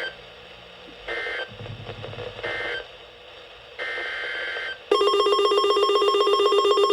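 Emergency Alert System data bursts: two short bursts of the two-tone SAME digital code, then a longer one, followed about five seconds in by a loud, rapidly pulsing electronic alert tone.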